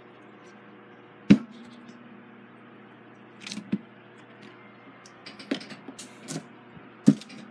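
Parts of a disassembled Emerson fan being moved and set down on a workbench: a handful of sharp knocks and light clinks, the loudest about a second in, over a faint steady hum.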